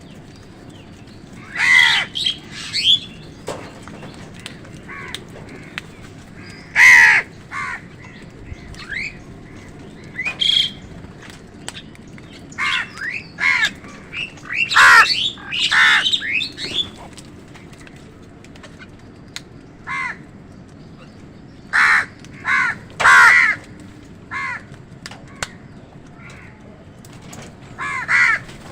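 Crows cawing: short, harsh calls in irregular bunches of a few at a time, with quieter gaps between.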